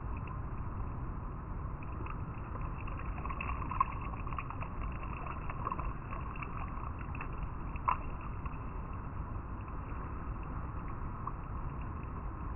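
River water flowing and rippling over rocks: a steady rush with small splashes and gurgles throughout, and two slightly louder splashes, one about 4 seconds in and one about 8 seconds in.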